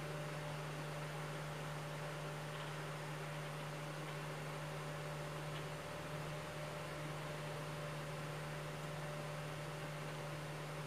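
Small DC fan running on a homemade soldering station: a steady low hum with an even airy hiss.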